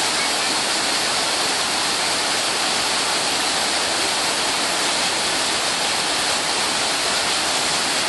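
Water pouring over a dam's weir and churning over rocks below: a steady, even rush, strongest in its high hiss.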